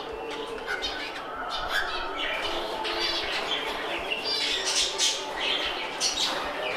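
Many caged small parrots squawking and chirping over one another in a steady, overlapping chorus, with a few harsher buzzy squawks standing out.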